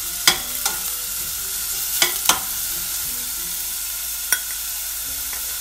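Diced onions sizzling in hot oil in a stainless steel saucepan, a steady hiss, while being sautéed. A spatula knocks and scrapes against the pan several times, mostly in the first half.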